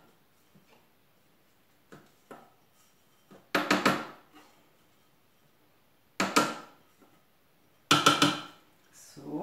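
Small bowls clinking against the Thermomix's stainless steel mixing bowl as dough ingredients are tipped in: a few light taps, then three loud clinks, each ringing briefly.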